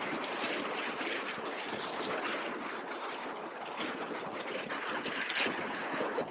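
Wind and road noise from a moving motorcycle, a 2018 Yamaha MT-07, heard through a helmet-mounted camera's microphone: a steady, even rush with no clear engine note standing out.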